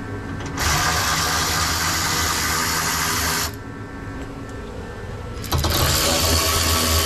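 Cordless power ratchet running in two steady whirs of about three seconds each, the first starting about half a second in and the second about five and a half seconds in, as it spins out a hybrid battery hold-down bolt.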